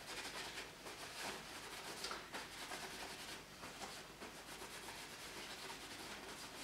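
Faint rustling and rubbing of a paper towel crumpled and worked between the hands, wiping off the last of the gun oil, in soft uneven strokes.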